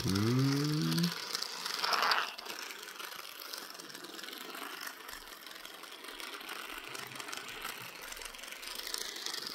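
Battery-powered toy car running along a plastic track, a steady faint whirring and clicking of its small motor and gears. A brief wavering, gliding pitched sound opens the first second, and a short louder rasp comes about two seconds in.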